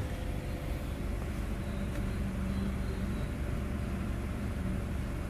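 A car running at idle, heard from inside the cabin as a steady low rumble.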